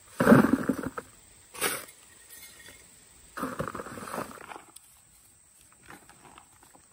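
Two shovelfuls of dry soil tipped into a plastic bucket, each a short noisy pour with the clods landing, the first right at the start and the second about three seconds later.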